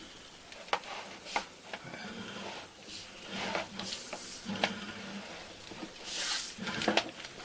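Scattered clicks and knocks, with a brief hiss about six seconds in, as a sewer inspection camera's push cable is fed further down the drain line.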